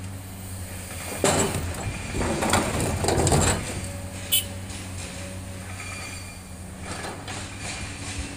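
Komatsu hydraulic excavator's diesel engine running steadily, with a loud clatter of boulders dumped into a steel dump-truck bed about a second in, lasting two seconds or so, and a single sharp clink of rock on metal a little later.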